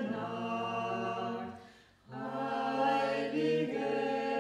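A small mixed group of men's and women's voices singing a Christmas carol in German, unaccompanied, in long held notes. The singing breaks off for a breath about one and a half seconds in and starts again about half a second later.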